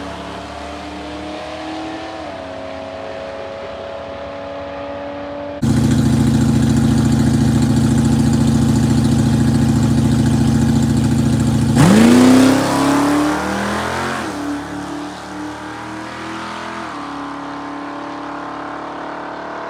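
Chevy S10 race truck's engine running at a steady speed, then suddenly much louder and held steady about five and a half seconds in. About twelve seconds in it revs up sharply, then drops back in loudness.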